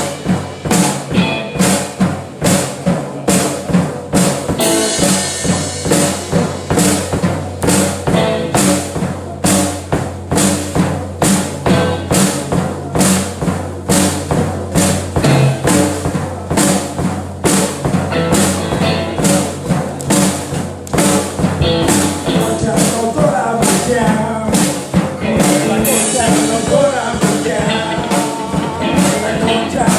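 A band playing, led by a steady drum-kit beat of about two hits a second under bass and other instruments.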